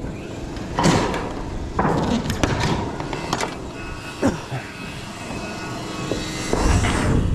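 Sheet-metal standing-seam roof panels handled by hand: about five sharp clanks and flexing rattles in the first few seconds, then a low rumble near the end.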